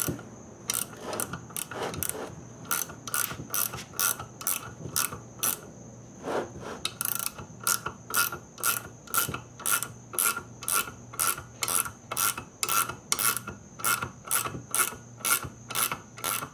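Ratcheting combination wrench clicking as it is swung back and forth, running down the 13 mm bolt of an LS valve spring compressor to compress a valve spring. The clicks come evenly, about two to three a second, with a short break about six seconds in.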